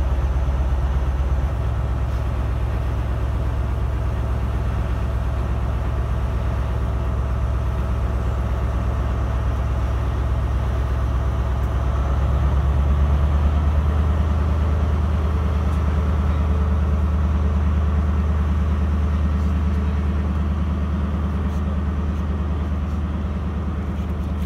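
Diesel engine of a Class 43 HST power car running as the train pulls out, a deep steady drone that steps up in pitch about a second and a half in and grows louder and higher around halfway through as the engine takes more power.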